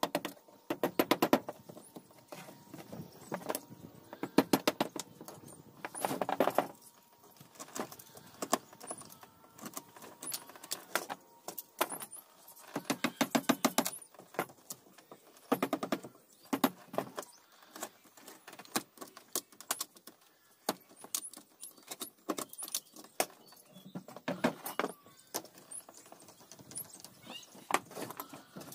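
Mallet striking a wood chisel as it cuts into a wooden door frame, in quick runs of light taps, several a second, with short pauses between the runs.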